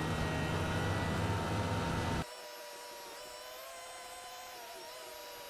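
Polaris snowmobile engine running as the sled travels over the ice, heard from the rider's seat. About two seconds in, the sound drops suddenly to a quieter, steady higher whine with the low rumble gone.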